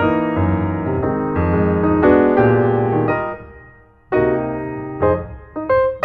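Background piano music: struck chords that ring on, dying away almost completely about four seconds in before new chords begin.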